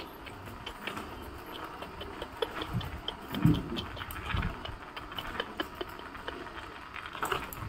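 Footsteps of a person walking on a hard tiled floor: two low thuds a little after the middle, with many light clicks and ticks scattered throughout.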